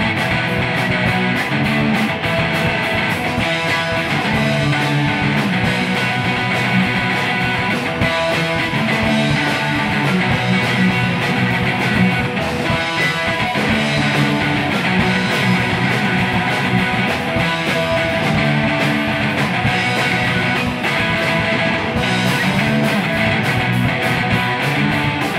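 Guitar-led rock music with a steady beat, playing without pause.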